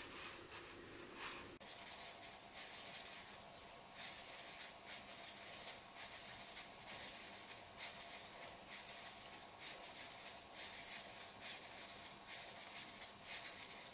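Faint, repeated scratchy rubbing of a metal crochet hook drawing yarn through stitches as single crochet is worked, a short stroke about every second. A faint steady hum comes in about a second and a half in.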